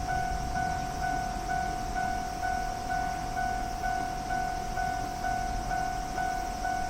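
Japanese level-crossing warning bell ringing steadily, a repeating electronic clang about twice a second.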